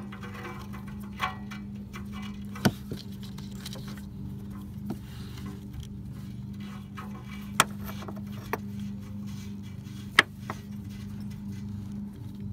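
A few sharp, widely spaced metallic clicks and clinks of a 7/8 deep socket on extensions as a new oxygen sensor is tightened into the exhaust, over a steady low hum.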